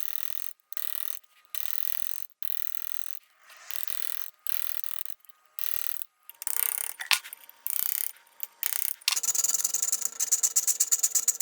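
A hand tool rasping on a brass piece in even back-and-forth strokes, roughly one a second, as the piece is cut and shaped. From about nine seconds in the strokes come faster and louder.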